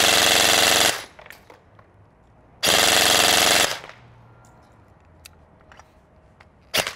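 G&G Cobalt Kinetics BAMF Team AR15 airsoft electric gun (AEG) firing on full auto at about 22 rounds a second, run on an 11.1 V lithium polymer battery. It fires two bursts of about a second each, a couple of seconds apart, then a short burst near the end.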